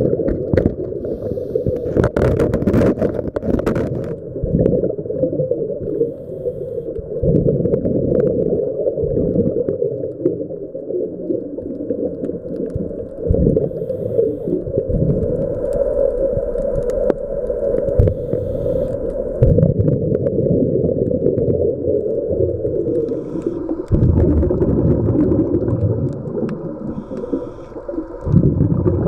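Muffled underwater sound through a camera housing: a scuba diver breathing through a regulator, with exhaled bubbles rumbling out in bursts every few seconds. About two to four seconds in, sharp clicks and knocks as an octopus's arm handles the camera housing.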